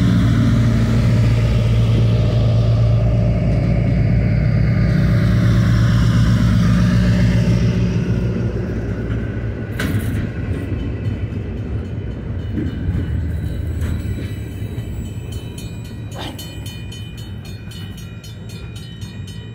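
Wisconsin & Southern railroad cars rolling past at a grade crossing, a loud steady rumble of wheels on rail with a low hum that fades after about eight seconds as the passenger cars give way to freight cars. A couple of sharp clicks from the wheels come partway through, and over the second half a rapid ringing from the crossing bell can be heard under the quieter rolling.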